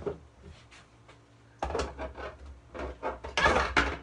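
Knocks and scrapes of fingerboard ramps and props being moved about on a tabletop. A few light knocks come in the first second, then a denser run of knocks and scraping, with the loudest scrape near the end.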